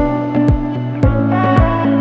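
Background music with a steady beat, plucked guitar-like notes over held chords.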